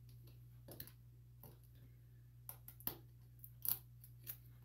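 Faint plastic clicks from a mouthwash bottle's cap being worked off by hand, about half a dozen scattered, irregular ticks.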